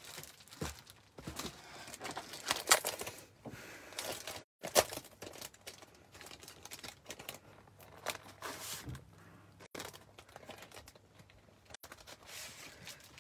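Sheets of paper and card being shuffled and handled, an irregular rustling and crinkling with a couple of sharper crackles about three and five seconds in.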